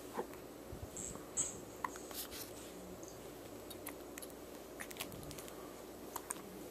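Small, quiet sounds from a baby with hiccups: short, soft clicks scattered irregularly, the sharpest about a second and a half in.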